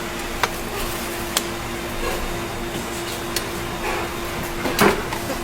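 Knife work on a large bigeye tuna: a few sharp knocks of the blade on the board and one louder scrape near the end, over a steady hum.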